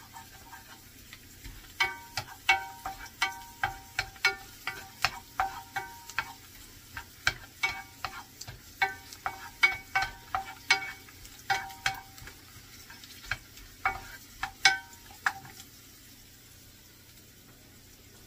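A wooden spoon stirring garlic cloves in a frying pan, knocking the pan about twice a second with short ringing clinks, over a faint sizzle of garlic frying in oil. The stirring stops a few seconds before the end.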